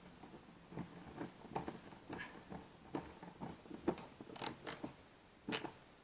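Small irregular clicks and taps of a plastic tape measure case being handled and fitted back together, with a few sharper clicks in the second half.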